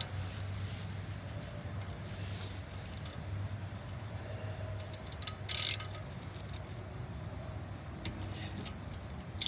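Socket ratchet working a brake caliper bolt: a short run of clicks about five and a half seconds in, over a steady low hum.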